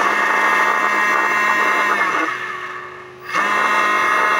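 Small brushless DC motor, driven through an ESC and controlled by a servo tester, running free with a steady whine. About two seconds in it slows, dropping in pitch and fading, then spins back up to speed a little over a second later.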